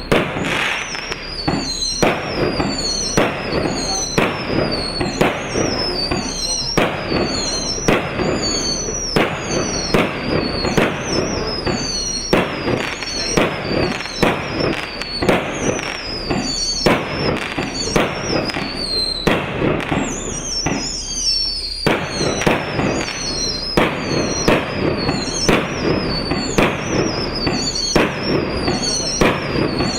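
A 100-shot, 1-inch firework battery firing in steady succession, about one and a half shots a second, each shot followed by a high falling whistle-like sound. There is a brief lull about twenty seconds in before the firing resumes.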